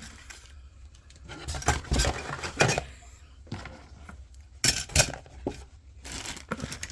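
Hard plastic model-kit parts trees being handled and set down, with several sharp clacks and knocks, the loudest near the middle and again about five seconds in.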